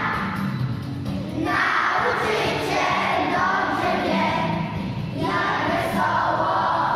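A children's choir singing a song together, with short breaks between phrases about a second and a half in and again about five seconds in.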